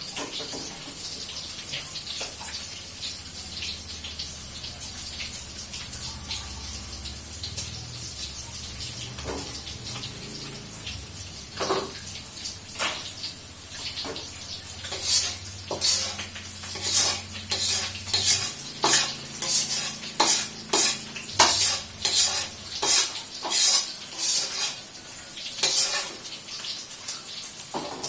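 A metal frying pan being handled at the sink, with running water from a tap, then a run of sharp, regular scrapes or clinks on the pan, a little over one a second, for about ten seconds past the middle.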